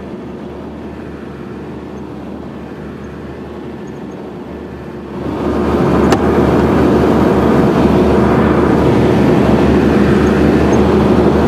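Tractor engine and Bush Hog rotary cutter running steadily across a field. About five seconds in the sound becomes much louder and fuller, and a single sharp click follows shortly after.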